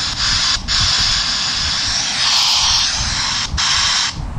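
FM radio static from the itel it5026 keypad phone's loudspeaker: a loud, steady hiss with no station coming in. It drops out briefly twice and cuts off just before the end.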